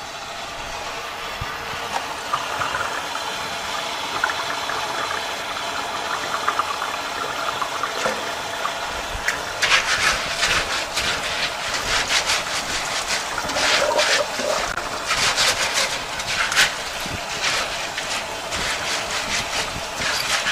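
Water running from a garden hose into a stainless steel sink, rinsing the bleach sanitizing solution off pea seeds in a mesh bag. From about ten seconds in come repeated short splashes and rustles as gloved hands work the bag under the stream.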